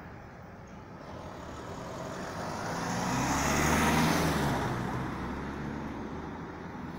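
A road vehicle passing by: engine and tyre noise swell to a peak about four seconds in and then fade away.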